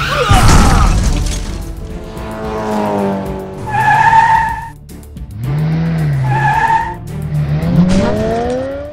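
Cartoon sound effects of an out-of-control race car skidding with tires squealing, mixed with background music; a loud noisy surge in the first second and a rising whine near the end.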